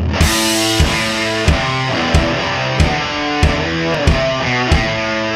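Background rock music with a driving beat and guitar.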